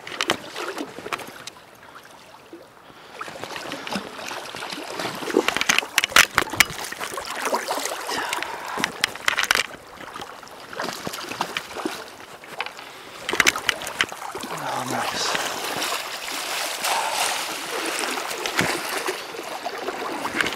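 A hooked steelhead splashing at the surface as it is played toward a landing net, several sharp splashes over the steady rush of the flowing creek.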